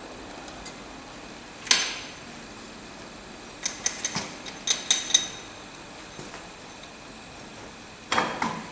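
Small metal parts and tools clinking and knocking: a sharp knock about two seconds in, a quick cluster of ringing metallic clinks around four to five seconds, and a couple more knocks near the end.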